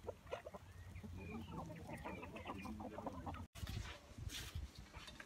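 A flock of hens and roosters clucking with many short, overlapping calls. About three and a half seconds in the sound cuts, and a plastic bag rustles as it is handled over a bowl of dough.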